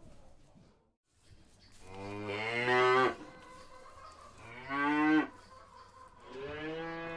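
Cow mooing three times: a long moo, then a shorter one, then a third that begins near the end.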